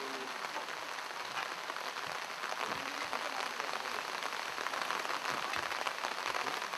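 Steady rain falling, a dense patter of fine drops.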